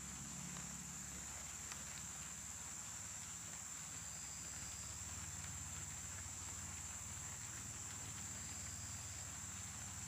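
Insects droning steadily at a high pitch in open country, with a low background rumble and a few faint ticks.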